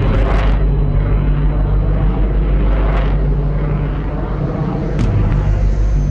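B-52 bomber's eight jet engines at takeoff power as it passes low overhead: a loud, steady, heavy rumble with a jet roar over it.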